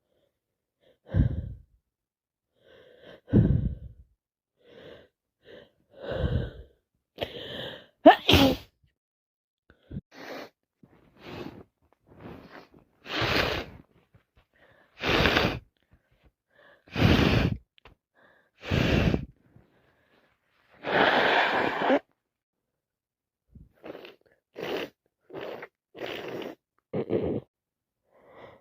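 A person with a heavy head cold sneezing over and over in a fit, with gasping breaths drawn in before the sneezes. The loudest, sharpest sneeze comes about eight seconds in, followed by a run of sneezes about every two seconds and a longer, noisier burst a little after that.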